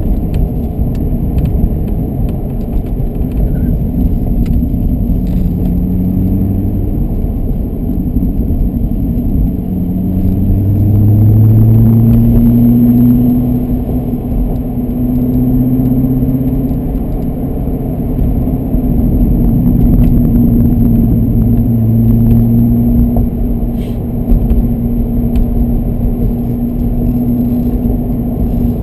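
Corvette Grand Sport's V8 engine heard from inside the cabin during hard track driving. The engine note rises in pitch several times in the first ten seconds or so, then holds at a steady higher pitch, swelling and easing in loudness, over a low road rumble.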